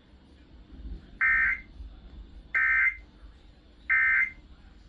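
Emergency Alert System end-of-message code: three short, loud bursts of digital data tones, each about a third of a second long and about 1.4 s apart. They mark the end of the alert broadcast.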